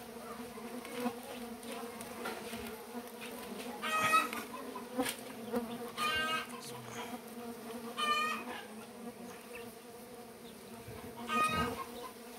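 Stingless bees buzzing as a steady hum around an opened hive box. Short clucks from a chicken come every couple of seconds and are the loudest sounds.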